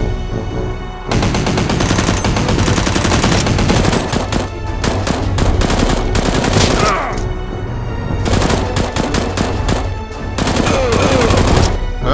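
Several long bursts of rapid automatic gunfire sound effects, with short gaps between them, over background music with a steady low beat.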